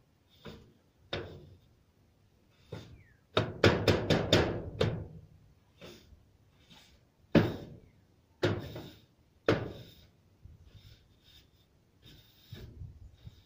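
A hand tool knocking and scraping in a roof gutter as volcanic ash is cleared out: irregular knocks, with a quick flurry of strikes about three and a half seconds in, then single knocks about a second apart.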